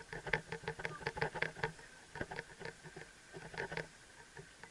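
Helmet-mounted action camera rattling and clicking on the rider's riding helmet as she rides: a run of quick, light clicks, about four or five a second, that thins out in the second half.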